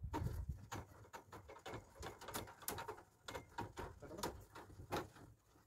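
Metal conduit pipe being turned by hand into the threaded hub of an electric meter base: an irregular run of small clicks and scrapes from the oiled threads working in.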